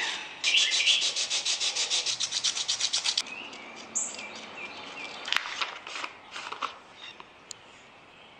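Sandpaper rubbing back and forth on a walnut knife handle: quick, even strokes at about ten a second for the first three seconds, then fainter, scattered strokes.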